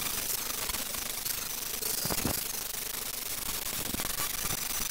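Angle grinder with an abrasive disc grinding the metal hub of an old wooden cart wheel: a steady rasp over a high motor whine, swelling and easing as the pressure changes.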